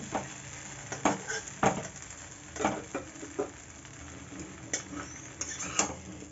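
A metal spatula scrapes and knocks against a metal kadhai as noodles and chicken are stir-fried, in separate strokes roughly once a second, over a faint sizzle.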